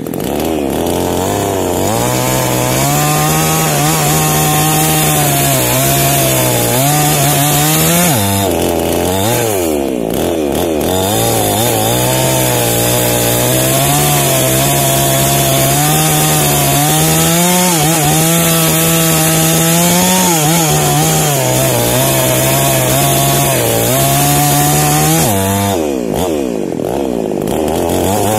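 Small New Paxton chainsaw running at high revs as it cuts into the base of a johar tree trunk. The engine pitch sags and recovers three times as the load on the chain changes.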